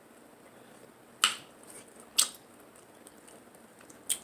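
Close-miked eating of a seafood boil: three short, sharp wet smacks, about a second, two seconds and four seconds in.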